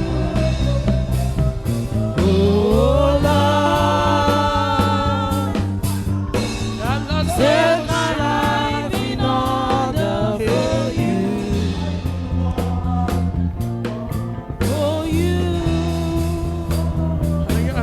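Gospel worship music: a sung melody over sustained keyboard chords and bass.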